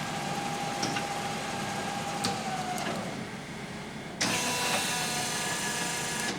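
LeBlond Regal engine lathe running at 95 RPM, its faint tone falling away a little under three seconds in as the spindle slows for a speed change. About four seconds in it starts up again at 256 RPM, louder, with a steady whine from its gearing.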